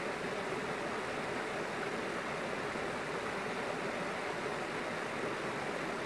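Waterfall and stream water rushing in a steady, even wash of sound.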